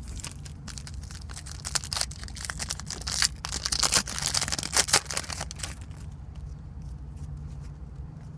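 Plastic trading-card pack wrapper being torn open and crinkled by hand, a dense run of crackles for about six seconds, loudest around the middle, then dying down.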